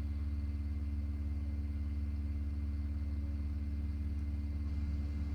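A steady low hum with a couple of faint held tones above it, unchanging throughout.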